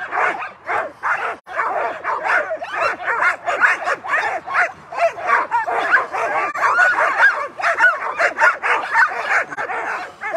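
A team of Alaskan husky sled dogs barking, yipping and whining all at once in a continuous, overlapping chorus: the excited clamour of dogs at a race start, straining to go.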